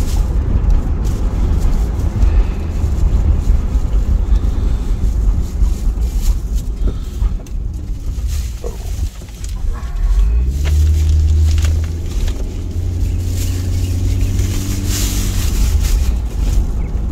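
Engine and road rumble heard inside a moving vehicle's cab. It eases briefly about nine seconds in, then the engine note comes up strongly as the vehicle pulls away, settling again a few seconds later.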